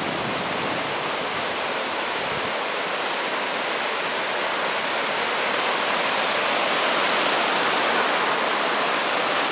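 Ocean surf washing and breaking in shallow water: a steady rushing that grows slightly louder in the second half as foamy waves break close by.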